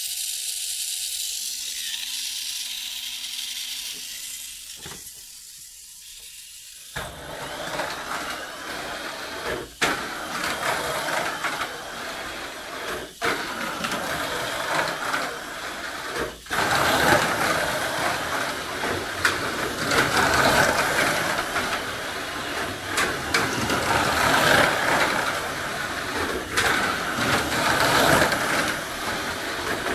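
Tamiya Mini 4WD K4 Gambo running laps on a plastic three-lane track: its small electric motor and gears whirring and the car rattling along the track walls. This starts about seven seconds in, drops out briefly three times, and runs steadily from then on.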